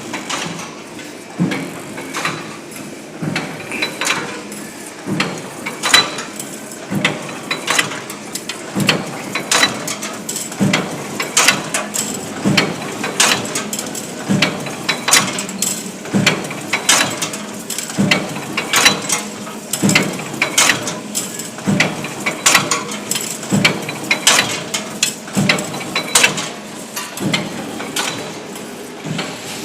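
Cold heading machine running, forming heads on long blanks: a regular mechanical knock about once a second, with lighter metallic clatter and clicking between the strokes.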